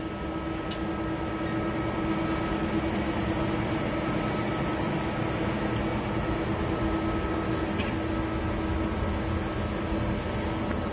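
Hirung EL75LL CNC lathe running with its spindle turning a metal workpiece in the chuck: a steady machine hum with a constant whine held on one pitch, and a few faint ticks.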